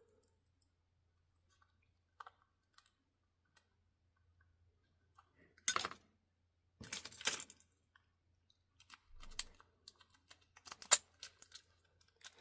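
Padlocks and lock-picking tools being handled: a few faint ticks, then a clatter about six seconds in, another about a second later, and a run of sharp clicks near the end.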